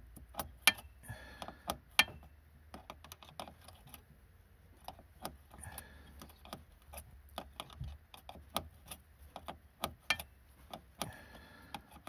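Small metal clicks, taps and clinks at an irregular pace, with a few short scrapes, as hands work tools and brake hardware under a car.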